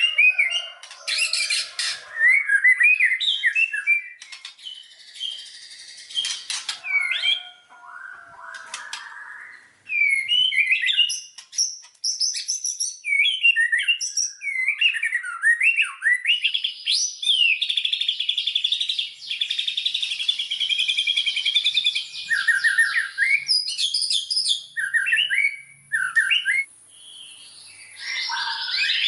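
White-rumped shama (murai batu) singing a varied song of whistled phrases and chatters, with a long rapid trill in the middle.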